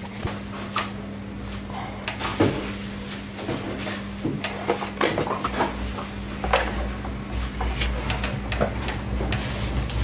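Plastic casing and parts of a Rowenta vacuum cleaner knocking and clicking irregularly as it is handled and taken apart.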